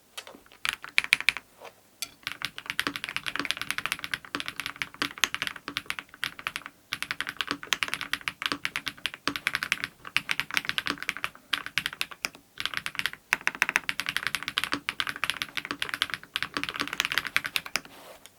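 Fast typing on a mechanical keyboard with Krytox-lubed BSUN Raptor linear switches, a polycarbonate plate and PBT doubleshot keycaps: quick runs of keystrokes broken by short pauses.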